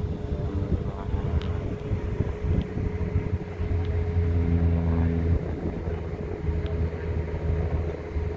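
Airplane engine running steadily, a constant tone over a low rumble.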